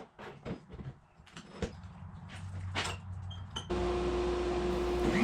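A few light knocks and clicks, then a low hum builds and, about two thirds of the way in, a DeWalt 735 thickness planer's motor is running with a steady whine.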